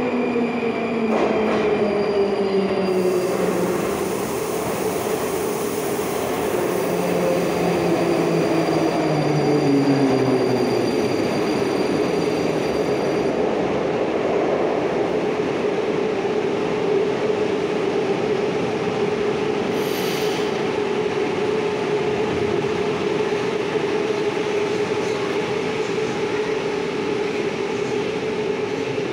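Metro train of the 81-725.1 'Baltiets' type arriving and braking to a stop: the traction motor whine falls in pitch over the first ten seconds or so as it slows, with wheel and rail noise, then a steady hum while the train stands. A brief hiss about twenty seconds in.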